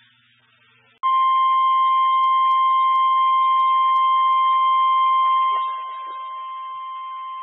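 NOAA Weather Radio's single-pitch 1050 Hz warning alarm tone, starting about a second in and sounding steadily, dropping in loudness about five and a half seconds in. It is the attention signal that comes before a weather warning broadcast.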